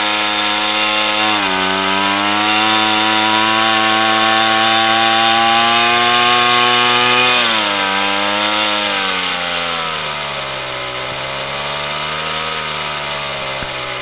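Overhauled Sachs 3V 50 cc two-stroke moped engine running under load. Its pitch drops a little over a second in, holds and creeps up, falls about seven seconds in, then wavers lower and a little quieter before rising and falling again near the end.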